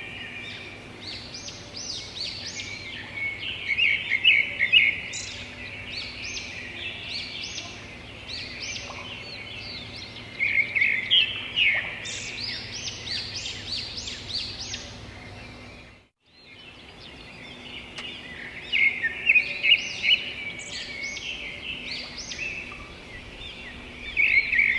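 Chorus of several small songbirds chirping and trilling, with many overlapping short high calls coming in louder clusters. About two-thirds through, the sound cuts out for a moment and starts again.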